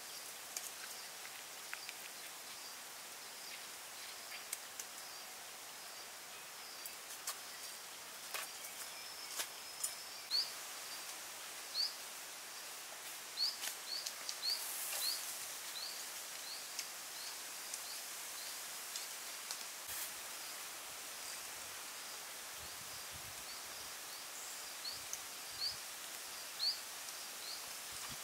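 Forest ambience: a steady high insect drone, with a bird giving short rising chirps, one or two a second, from about a third of the way in until near the end, and scattered sharp clicks.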